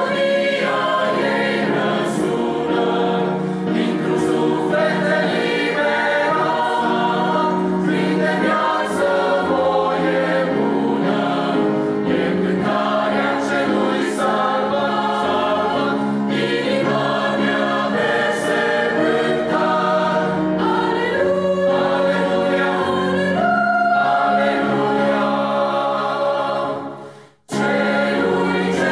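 Mixed choir singing a hymn in Romanian, accompanied by piano. The sound breaks off briefly near the end, then the singing resumes.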